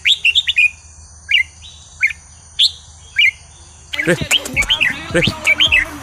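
Red-whiskered bulbul calling in short, rising whistled chirps about every half second, with sharp ticks between. About four seconds in, a denser, faster run of calls with fuller, lower notes begins.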